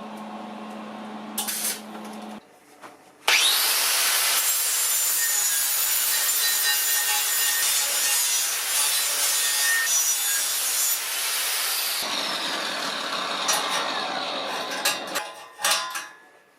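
An electric motor-driven machine or power tool is switched on about three seconds in and runs with a loud, even rushing, grinding noise. It is switched off at about twelve seconds and spins down with a falling whine, followed by a few clicks.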